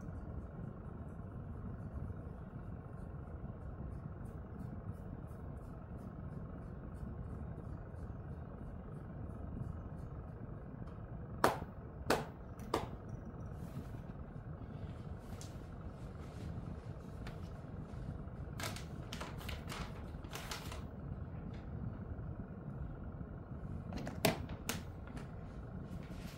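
Steady low room noise with a few sharp clicks or knocks: three close together about halfway through and two more near the end.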